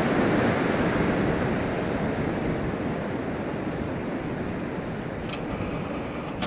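Steady rushing of wind and surf at the sea, slowly fading away, with a few faint clicks near the end.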